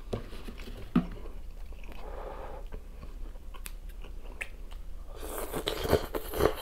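Close-miked eating of phở bò rice noodles: soft mouth and chewing sounds with a few small clicks, among them a snip or two of kitchen scissors cutting the noodles. Near the end comes a long, hissy slurp as a noodle strand is sucked in.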